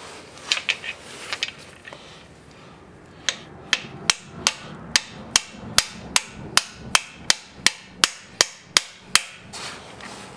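Hammer striking metal as a freeze plug (core plug) is driven into a 396 big-block Chevrolet engine block. There are a few scattered taps, then a steady run of about sixteen sharp strikes, roughly two and a half a second, stopping near the end.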